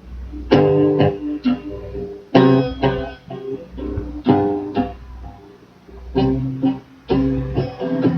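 Instrumental break of a live band song: guitar chords struck in repeated accents, with a low bass line underneath.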